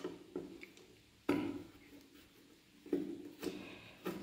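Light knocks and clicks of a screwdriver and metal parts being handled against a stainless steel pressure cooker lid as it is taken apart, about four separate taps, the strongest a little over a second in.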